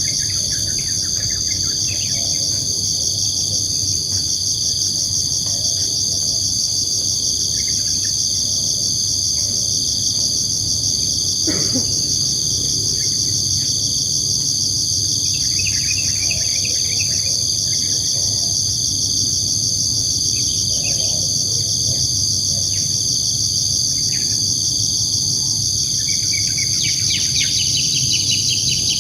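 Evening insect chorus, a steady high-pitched trilling that never lets up, with scattered bird chirps over it and a quick run of chirps near the end. A low steady rumble sits underneath.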